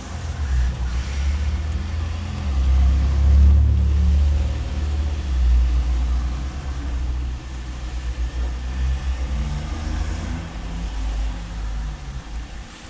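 Low, uneven car rumble heard from inside a car's cabin, with a faint steady hum above it.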